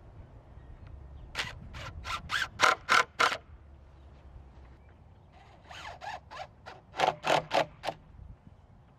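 Cordless drill driving screws through a steel bracket into a wooden guide rail, the trigger pulsed in quick spurts. There is a run of about seven short bursts, a pause, then another run of about eight.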